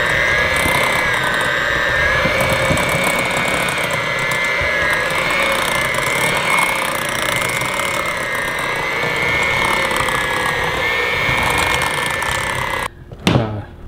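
Electric hand mixer running steadily, its beaters working through a thick dip in a glass bowl. The motor's whine wavers slightly in pitch as the load shifts, and it switches off about a second before the end.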